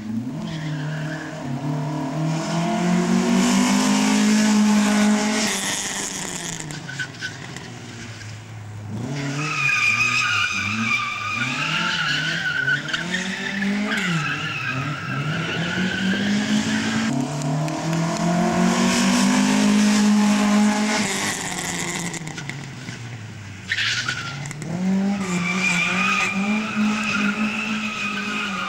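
A slalom car's engine revs hard and drops back again and again, with its tyres squealing through the long turns.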